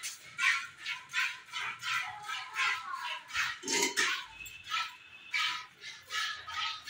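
Hand-milking a cow: jets of milk squirting into a metal bucket, a rhythmic hissing splash about two to three times a second as the hands alternate. A brief lower sound comes a little past halfway.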